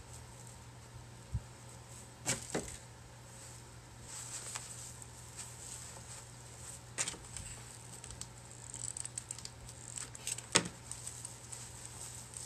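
Faint rustling and crinkling of fabric over plastic-bag stuffing squeezed in the hands, with a few light clicks and taps, the sharpest about ten and a half seconds in, over a low steady hum.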